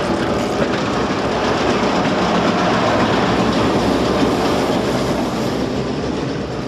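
Ontario Southland Railway train hauled by FP9 diesel locomotives passing on the rails, a steady rumble of engines and wheels with some clickety-clack, fading near the end.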